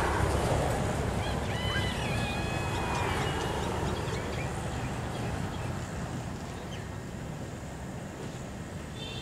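Low outdoor rumble that slowly fades away, with a few brief high whistling calls about two seconds in.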